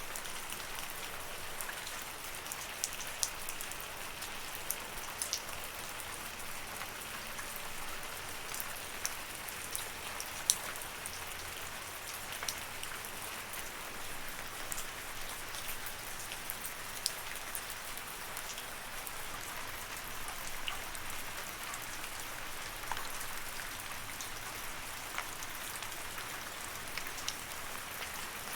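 Steady rain falling, a continuous hiss with many separate sharp drop ticks scattered through it.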